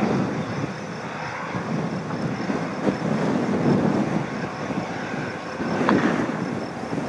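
Turbofan engines of business jets taxiing at low power, a Dassault Falcon 2000 and a Gulfstream: a steady rushing hum with a faint high whine. It grows louder about six seconds in, as the Gulfstream passes.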